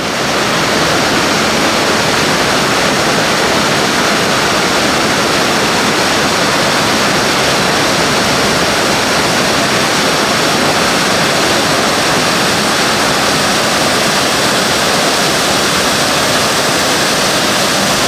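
A loud, steady rushing noise, even from low to very high pitch and unchanging throughout, which sets in and stops abruptly.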